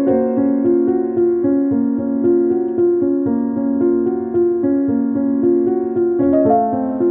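Background piano music: a steady melody of held notes, the chord pattern shifting about six seconds in.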